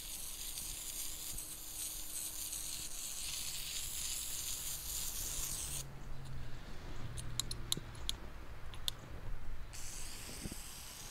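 Water from a garden hose spray wand hissing into a hypertufa bird bath as it fills. The spray stops for about four seconds in the middle, with a few sharp ticks, then starts again near the end.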